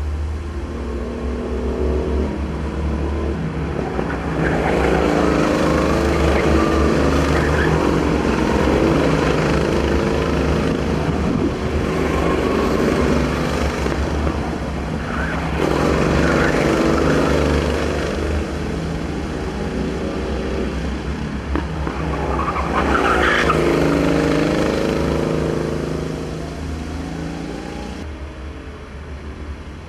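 Racing kart engines revving up and down as karts go round the corner, the engine note rising and falling in waves. The louder passes come about four seconds in, around fifteen seconds in, and around twenty-three seconds in, over a steady low hum.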